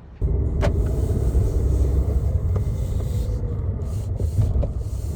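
Steady low rumble with a few faint clicks, cutting in and cutting off suddenly.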